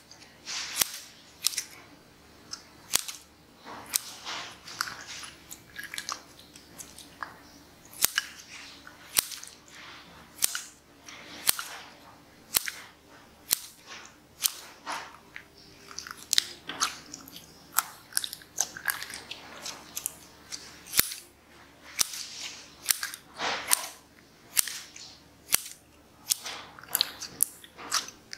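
Scissors snipping through clear slime, a sharp snip about once or twice a second, with softer sticky sounds between the cuts.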